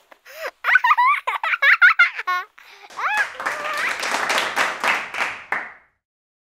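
A baby giggling in quick, high bursts, then a longer, breathier laugh that stops abruptly near the end.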